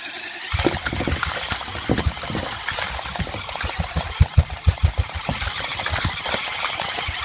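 Battery-powered Chubby Puppies Bumbly plush dogs running: a vibrating motor buzzes while rapid, irregular thumps and knocks start about half a second in, as the toys shake, bounce and hit small toy figures.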